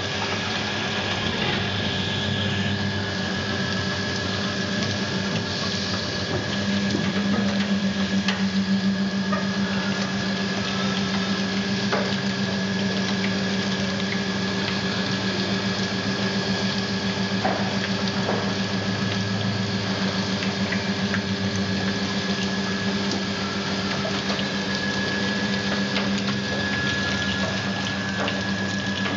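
Sciaky resistance seam welder running along a stainless steel sink rim: a steady electrical hum from the welding machine that grows stronger about six seconds in, over the hiss of cooling water spraying onto the copper wheel electrode and the seam.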